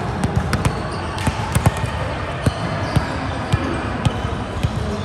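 Volleyballs being hit and bouncing on a hard court: about a dozen sharp, irregular smacks and thuds over the steady background noise of a sports hall.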